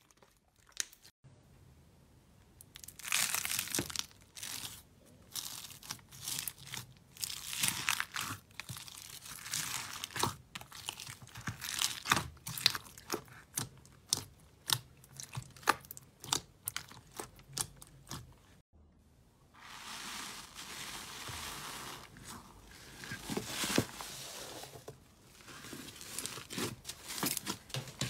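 Slime being squeezed, poked and kneaded by hand, including a slime packed with foam beads: runs of sharp wet crackles and small pops. About two-thirds of the way through it turns to a steadier crinkly tearing hiss as the slime is stretched, then the crackling comes back near the end.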